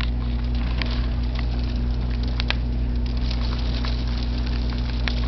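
Graupel (snow pellets) pattering down in a thundersnow storm: an even hiss scattered with many small, irregular ticks. A steady low hum runs underneath.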